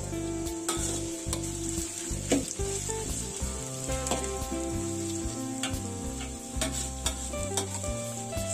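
Sliced onions and paste sizzling in hot oil in a wok, stirred with a spatula that clicks and scrapes against the pan now and then. Background music with a bass line plays underneath.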